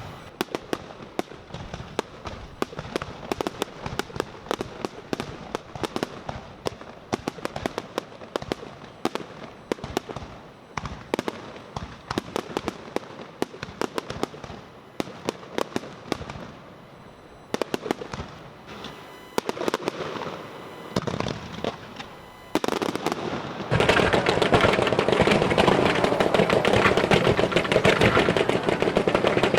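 Fireworks bursting in a rapid run of sharp cracks and pops. In the last few seconds they build into a dense, much louder continuous crackle.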